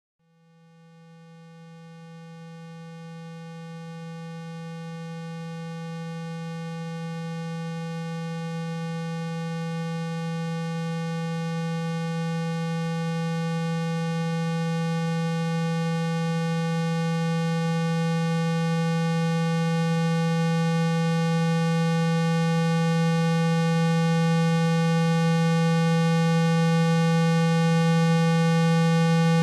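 A steady 165 Hz sine tone, played to vibrate water and dust out of a phone speaker. It swells gradually from near silence to loud, with faint higher overtones and a light hiss.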